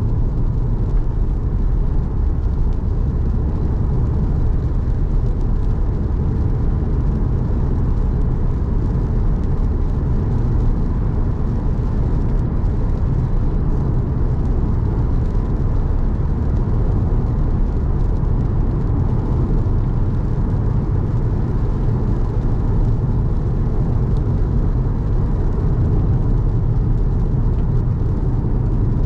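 Car driving on a wet road: a steady, unbroken low rumble of tyres and engine.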